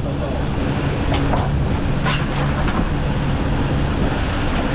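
Outboard engines of a center-console fishing boat running steadily, with wind and water noise over the hull and a low rumble.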